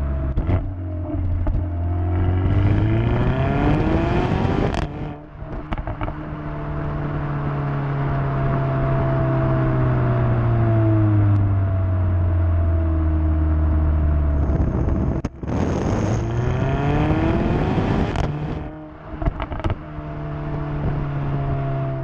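Exhaust of a 2017 Mercedes-AMG A45's turbocharged 2.0-litre four-cylinder, heard right at the tailpipes while driving: the engine climbs through the revs twice, each time cutting off sharply and followed by a few crackles and pops from the exhaust. In between it runs steadily at cruising speed with road noise.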